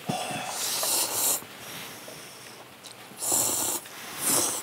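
Hot ramen noodles slurped in three noisy bursts: a long one lasting over a second at the start, then two shorter ones about three and four seconds in.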